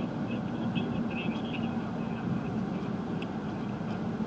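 Steady engine hum and road noise of a car driving at an even speed, heard from inside the cabin.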